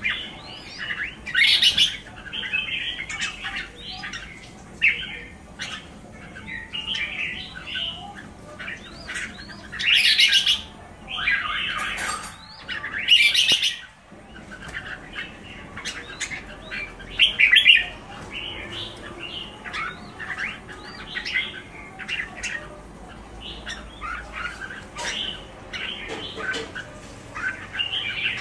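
Caged pied red-whiskered bulbuls calling back and forth, a busy run of short chirps and harsh squawky calls. The loudest calls come about ten, twelve to fourteen, and seventeen seconds in, with occasional light clicks among them.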